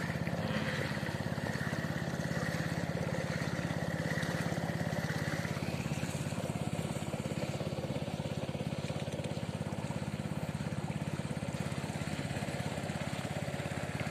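Small engine of a wooden boat running steadily at an even speed, a constant rapid put-put drone, as the boat moves across calm water.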